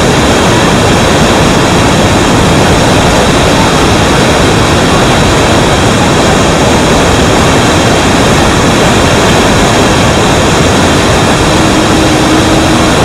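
Iguazu Falls and the Iguazu River in flood: a loud, steady rush of white water, even and unbroken throughout.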